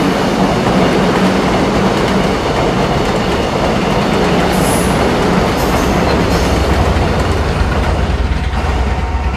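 Electric commuter train passing close by, a loud steady rush of wheels on rails.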